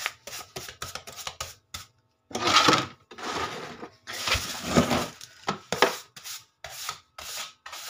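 Broom sweeping across a ceramic tile floor: a series of brushing strokes of uneven length, the two longest about two and a half and four and a half seconds in.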